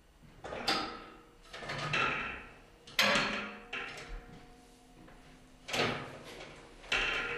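Heavy round steel pressure hatch being unlatched and swung open: a series of about five metal clunks and scrapes, each dying away with a short ring.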